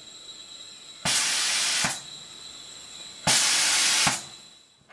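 High-pressure gas hissing through a fill valve in two bursts of just under a second each, every burst opened and shut with a click, as the 20 mm air rifle's reservoir is topped up to about 310 bar.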